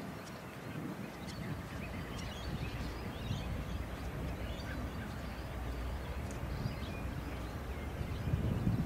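Outdoor ambience: a steady low wind rumble on the microphone, with scattered faint bird chirps.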